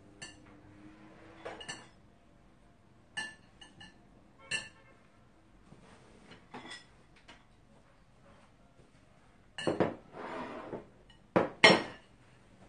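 Metal chopsticks clicking against a ceramic platter in scattered, separate taps. About ten seconds in comes a louder clatter of dishes with a short scrape, as serving bowls are set down on the wooden table.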